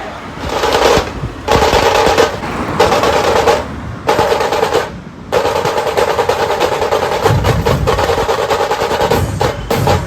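Drums played in fast, dense rolls, in several stretches with short breaks near the middle.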